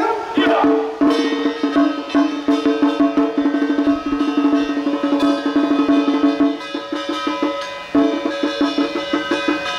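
Traditional temple ritual music: one steady, held note over a fast, continuous run of clacking percussion strikes, with a brief break about eight seconds in.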